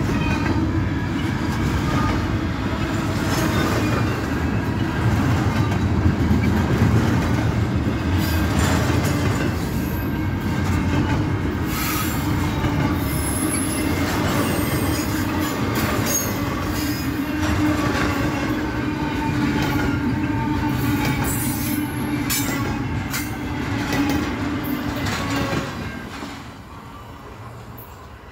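Freight train cars rolling past at close range: a steady rumble of wheels on the rails with squeals and clicks now and then. The sound drops away sharply near the end as the train passes.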